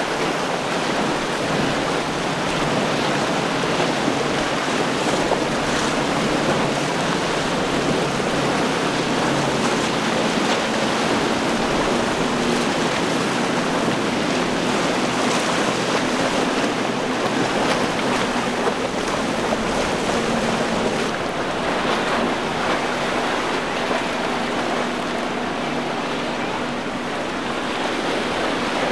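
Choppy sea water rushing and splashing from small boats' wakes and spray, with wind buffeting the microphone and the low, steady drone of outboard motors underneath.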